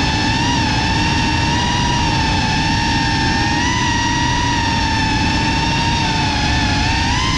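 Cinelog 35 FPV drone's brushless motors and propellers whining at a steady cruising throttle, the pitch wavering slightly with small throttle changes. Heard from the onboard camera, with a rush of prop wash and wind underneath.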